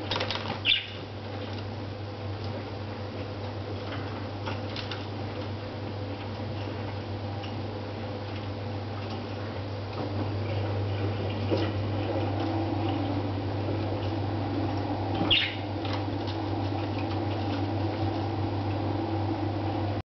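A young budgerigar gives two short high-pitched chirps, one about a second in and another about three quarters of the way through, over a steady low hum, with faint clicks and rustling between.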